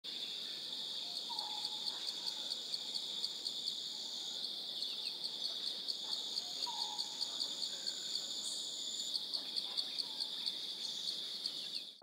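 Chorus of insects shrilling steadily in a high, pulsing drone, about three or four pulses a second, with a thinner, higher insect tone coming and going above it. A short lower call repeats three times.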